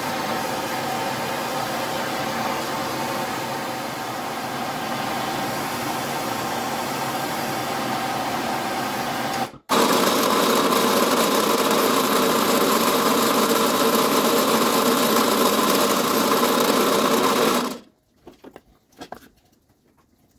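A handheld gas torch burns with a steady hiss as it heats a forged steel hook for straightening. After a cut, a drill press motor runs steadily and stops near the end.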